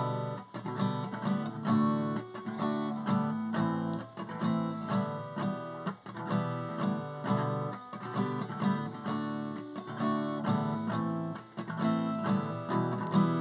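Acoustic guitar strumming chords in a steady rhythm, an instrumental passage of a song with no singing.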